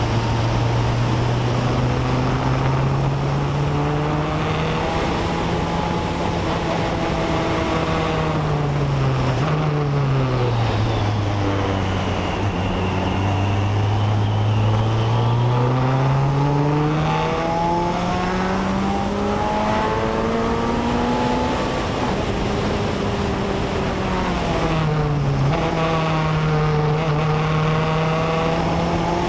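BAC Mono's four-cylinder engine driven at speed on a track, heard onboard: its note climbs and holds, falls sharply several times, and climbs again as the car accelerates.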